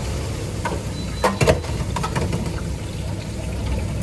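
A steady low rumble, with a few sharp knocks about a second and a half in.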